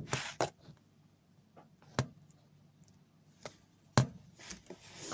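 Scattered sharp clicks and knocks, about six of them, loudest at the start and about four seconds in: hand work at a small tab on a washing machine's motor while its carbon brushes are being replaced.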